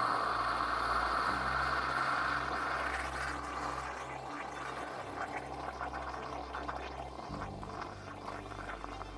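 Stovetop moka pot on a small gas stove: a steady hiss that fades after about two to three seconds, then gurgling and sputtering with many small irregular pops as the coffee comes up, the sound of the brew nearly finished.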